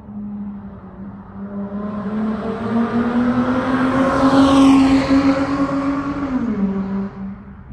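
Dodge Charger SXT's V6 exhaust through a Flowmaster Super 10 muffler, driving past. Its engine note climbs slowly in pitch and grows louder as the car approaches. It peaks about five seconds in, then the pitch drops sharply as the car goes by and the sound fades.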